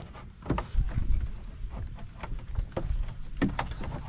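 Irregular clicks and knocks of a carbon fiber diffuser being pushed and worked into place against a Dodge Charger's plastic rear bumper, over a low rumble.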